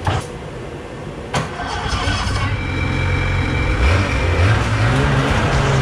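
Ski-Doo snowmobile engine running, revving up about three and a half seconds in and holding at higher revs as the sled is driven and pushed up the trailer ramp. A sharp knock at the start and another about a second and a half in.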